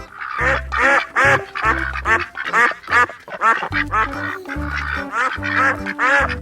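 Duck quacking in a quick series of short quacks, about three a second, over background music with a steady bass line.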